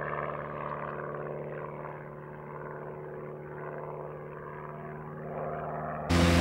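Propeller engine of a Long-EZ homebuilt pusher light aircraft running steadily. Near the end the sound jumps suddenly to a louder, fuller engine noise.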